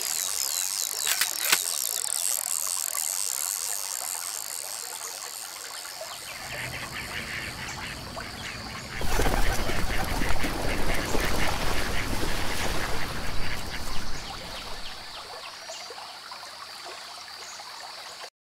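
Outdoor nature ambience with ducks quacking, louder and busier from about nine to fourteen seconds in, then fading.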